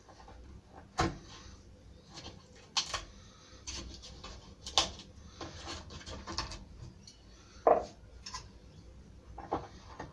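Irregular metallic clinks and knocks of hand tools and small metal fittings being handled and set down, about ten in all, with the sharpest about a second in and near eight seconds.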